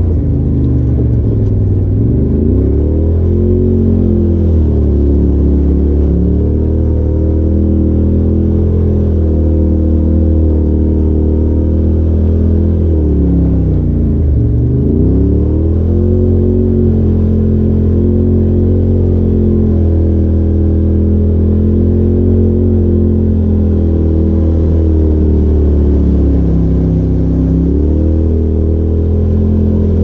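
Polaris RZR Turbo side-by-side engine running under load on a dirt trail, revving up and down with the throttle over a deep steady drone. The revs drop and climb back about two seconds in and again around the middle, with a smaller dip near the end.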